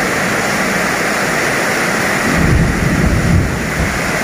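Steady heavy rain, with a low rumble about two and a half seconds in that lasts about a second.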